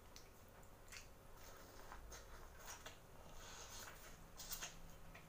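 Faint mouth sounds of eating boiled corn on the cob: soft bites, chewing and lip smacks, heard as scattered small clicks every half second or so.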